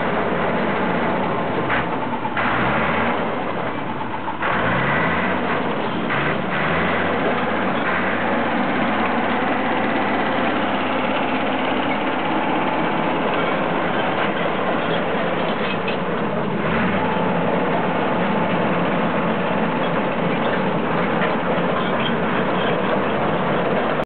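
Massey-Ferguson MF400 crawler bulldozer's engine running as the machine moves, its pitch rising and falling a few seconds in and then running steadily.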